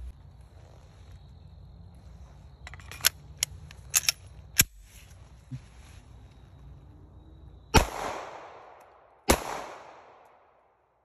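Two .45 ACP pistol shots about a second and a half apart, each with a long echoing tail, the second trailing off toward the end. A few sharp clicks come a few seconds before the first shot.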